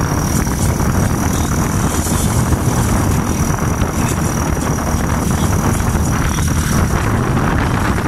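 Steady drone of a moving vehicle's engine and road noise, heard from on board, with a thin, steady high-pitched whine over it.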